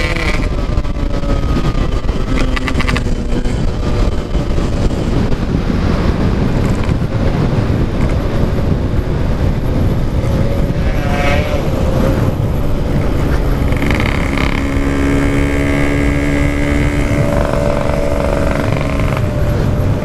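Yamaha RX-King 135 cc two-stroke single-cylinder engine running under way through its aftermarket standard-style exhaust, heard from the rider's seat over loud road rush. Its pitch holds steady for a few seconds in the second half.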